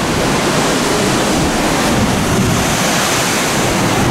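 Heavy storm surf breaking and churning against rocks and a sea wall, a loud constant rush, with gale-force wind buffeting the microphone.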